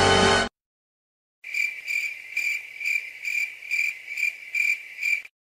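Background music cutting off about half a second in. After a short silence, a cricket chirps in a steady, even rhythm of about two chirps a second.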